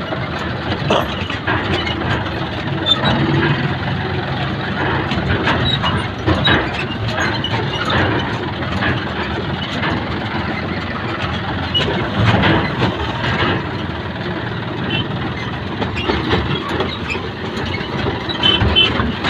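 Engine of a Kubota farm machine running steadily, with frequent short knocks and clanks of metal over it.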